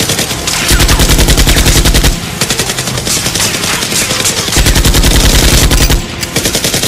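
Dubbed machine-gun sound effect firing rapid automatic bursts, with two heavier stretches of about a second and a half each.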